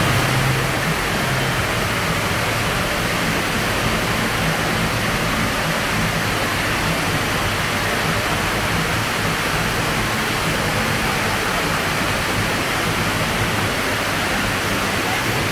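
Indoor water-curtain fountain: a sheet of water falling down a tall wall and splashing into the pool at its foot, a steady rushing hiss.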